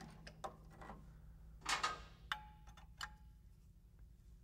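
Wrench working on the steering box's fittings: a few scattered light metal clicks and taps, two of them with a short ring, and a brief scraping rustle about two seconds in.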